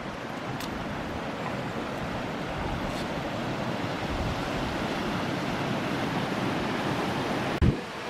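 Rushing water of a rocky mountain stream: a steady hiss that grows slowly louder. A brief low thump comes near the end.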